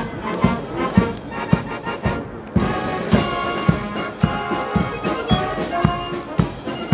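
Military brass band playing a march, with a bass drum beating about twice a second under the brass. After a brief lull about two seconds in, the brass comes back in fuller.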